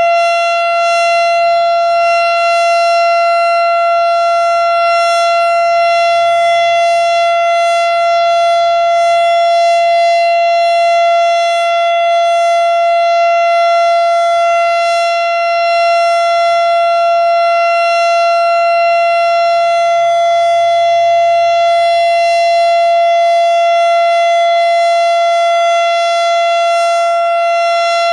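Federal Signal STH-10 outdoor warning siren sounding the alert signal: one loud, steady held tone with strong overtones.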